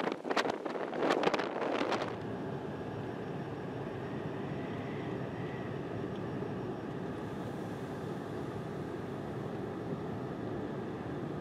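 Strong wind gusts buffeting the microphone for about the first two seconds, then a steady, even rush of wind with a faint hum in it.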